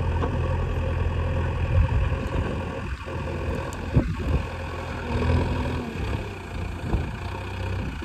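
JCB 3DX backhoe loader's diesel engine running steadily while the machine works soil, with a couple of sharp clunks about two and four seconds in.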